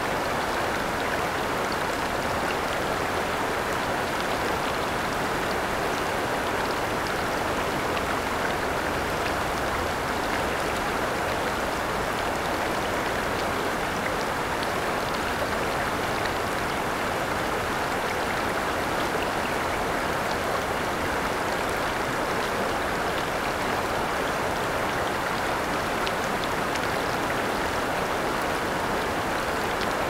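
Steady rushing of a shallow river spilling over a low weir.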